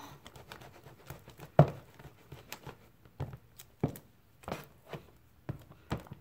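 A spatula stirring a thick, sticky mix of glue and shaving cream in a clear plastic tub: irregular soft strokes and knocks against the tub's plastic, the loudest about a second and a half in.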